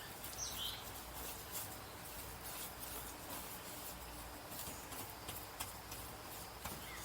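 Faint outdoor ambience: scattered light clicks and rustling, with a short bird chirp about half a second in.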